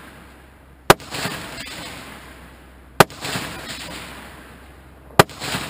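Three loud gunshots about two seconds apart, each trailing off in a rumble of about a second: a competitor firing at field targets during a 3-gun stage.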